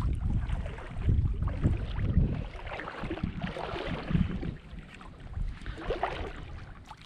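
Wind rumbling on the microphone over the sound of shallow sea water, heaviest in the first couple of seconds, then easing to a softer, uneven wash with small splashes.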